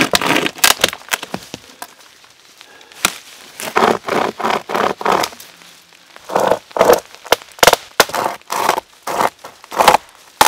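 Dry sticks and brush crackling and snapping in a series of short, irregular bursts with sharp cracks between them.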